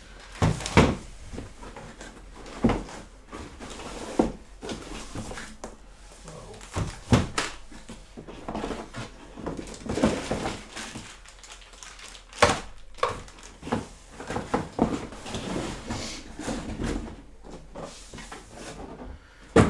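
Irregular knocks, clunks and rustling as monitor stand parts and packaging are handled and set down, with a handful of sharper knocks.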